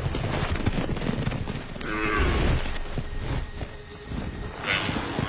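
A yak lowing, one bending call about two seconds in and another starting near the end, during a wolf attack. Steady low rumbling and scuffling noise runs under the calls.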